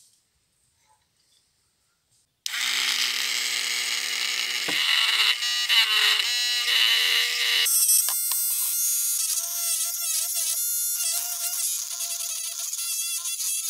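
Near silence, then a couple of seconds in a cordless rotary tool with a small abrasive stone bit starts up suddenly and runs steadily, grinding rust off the steel clip of an antique balance scale. About five seconds later the sound turns higher-pitched and wavering.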